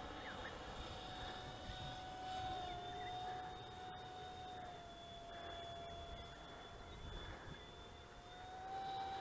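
Remote-control BAE Hawk model jet flying at a distance: a faint, steady whine that drifts slightly in pitch, with a weaker higher overtone, getting a little louder near the end.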